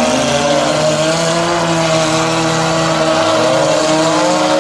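Demolition derby cars' engines revving and running, their pitch rising and falling as the drivers work the throttle.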